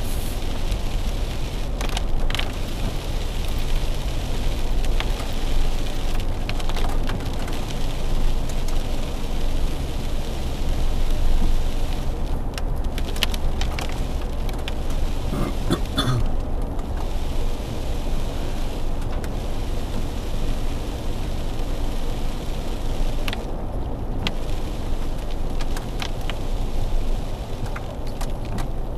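Vehicle driving at about 30 mph on a rain-wet road, heard inside the cabin: a steady low rumble of engine and tyres with hiss from the wet asphalt, rain on the windshield and a few short sharp taps.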